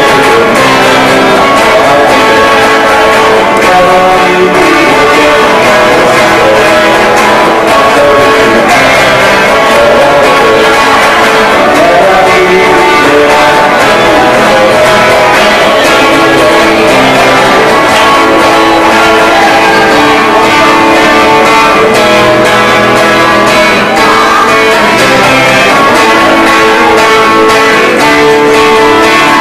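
Live band playing a song with guitar, loud and continuous.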